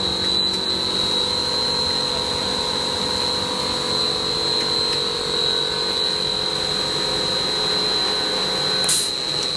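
PVC blown-film extrusion machine running: a steady machine hum with a constant high-pitched whine over it. A brief click about nine seconds in.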